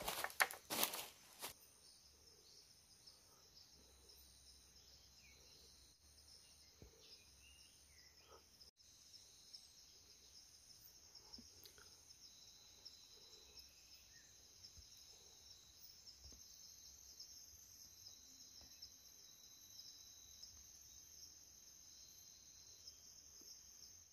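Faint tropical forest ambience: a steady, high-pitched insect chorus. A burst of loud, close noise comes in the first second and a half.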